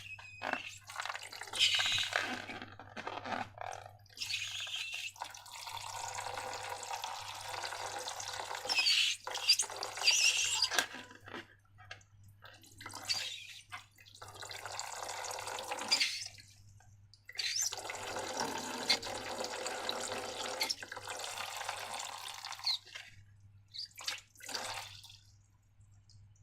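Wet liquid sounds of slime being poured and worked. It comes in a few long stretches of splashy, running noise, broken by short clicks and pauses.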